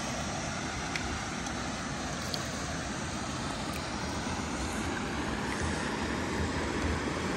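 Steady wind buffeting the microphone over faint lapping lake water, with a few faint ticks.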